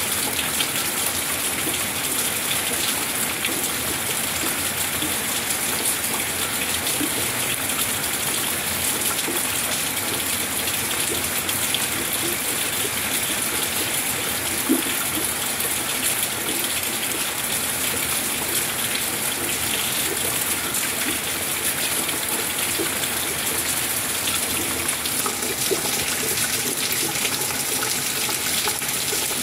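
Steady rain falling, an even hiss of water that does not let up.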